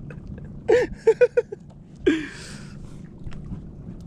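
Short wordless voice sounds from people on a boat: a few quick syllables about a second in and another brief, breathy call near the middle, over a low steady rumble with a few faint clicks.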